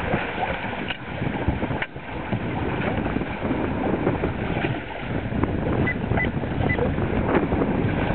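Wind buffeting the microphone and water rushing along the hull of a trimaran under sail. A little past the middle come three short, high beeps.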